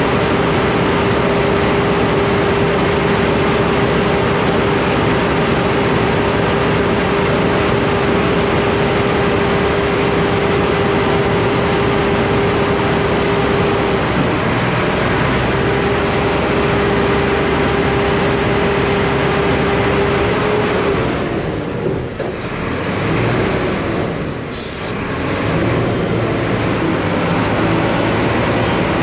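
Diesel engine of a Mack McNeilus front-load garbage truck held at raised revs to drive the hydraulics, with a steady whine over the engine noise. The whine breaks off briefly about halfway and stops about two-thirds through, and the engine then dips twice.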